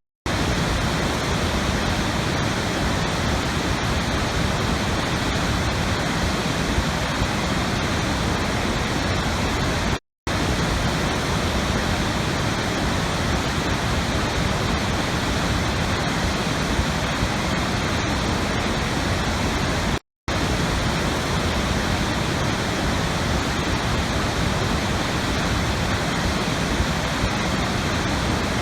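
Steady rushing water with an even, unbroken hiss, like a waterfall or fast stream. It cuts out to silence for a moment about ten seconds in and again about twenty seconds in.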